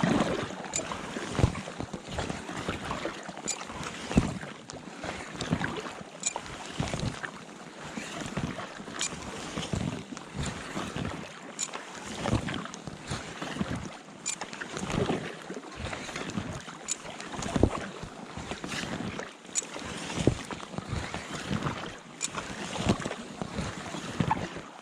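Paddle strokes pulling a packraft through the water: a steady rhythm of splashes, about one every second and a half.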